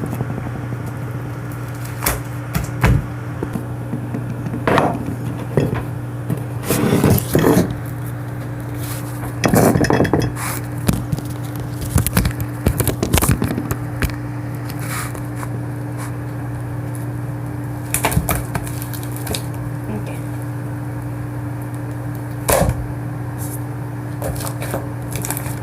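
Slime being squished and stretched by hand, giving irregular short crackling pops and squelches, over a steady electrical hum.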